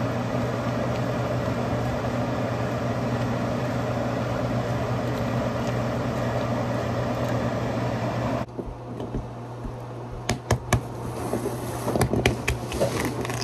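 Steady whooshing hum of a kitchen fan-type appliance that cuts off abruptly about eight seconds in. Scattered sharp clicks and knocks of kitchen items being handled follow.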